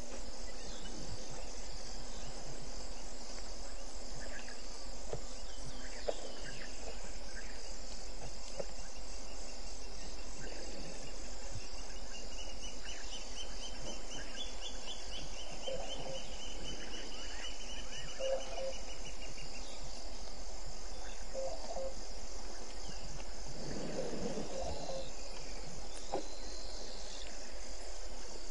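Night chorus of crickets: a steady, evenly pulsed high trilling. A second, lower trill runs through the middle, a few short low calls sound in the second half, and a brief louder low sound comes a few seconds before the end.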